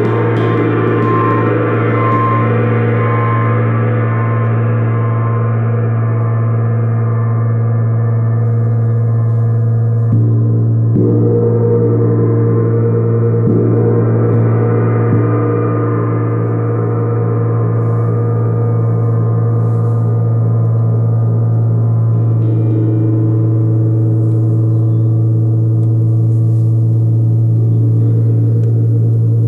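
Large tuned planet gong (a moon gong) played with a soft fluffy mallet: one long, unbroken shimmering wash over a strong deep hum, freshened by a few soft strokes near the middle.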